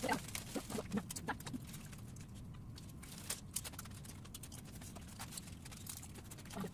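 Eating sounds: a plastic bag of crackers rustling and crackers crunching, with scattered sharp clicks and taps. The clicks come thickest in the first couple of seconds.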